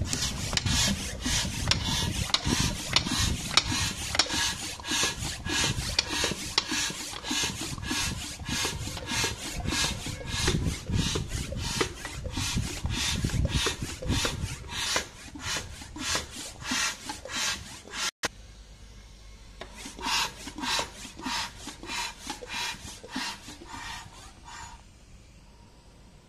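Bicycle hand pump worked in quick, even strokes, about three a second, each stroke a rasping rush of air as it inflates a large rubber balloon. The strokes break off about 18 seconds in, resume more faintly, and stop near the end.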